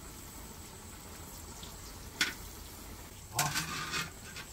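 Cassava cakes deep-frying in a pan of hot oil, with a steady sizzle. A sharp clink from a utensil comes about two seconds in, and the sizzling turns louder and more agitated near the end as the cakes are stirred or lifted.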